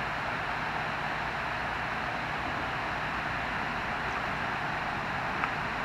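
Steady rushing of water pouring over a dam, an even hiss, with a single sharp click near the end.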